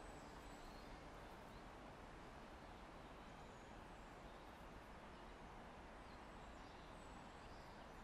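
Near silence: a faint steady background hiss with a few faint, brief high chirps.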